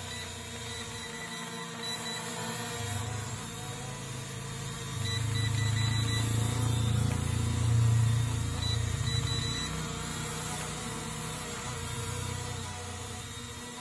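Small quadcopter drone hovering low, its propellers whirring steadily, with a louder low rumble from about five to nine seconds in as it hovers right by the microphone.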